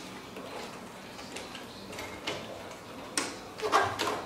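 Hand-handling noise as a new convertible soft top's pieces are pressed and worked into its frame rail: scattered light clicks and rustling, with a louder burst of clicks and scraping near the end.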